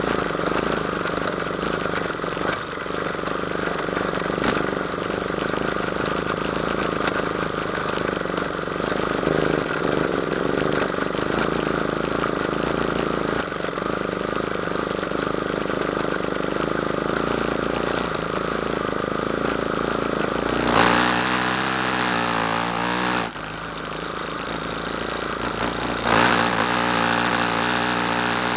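ATV engine running under way, its pitch wavering with the throttle; it revs up hard about two-thirds of the way in, eases off briefly, then revs up again near the end.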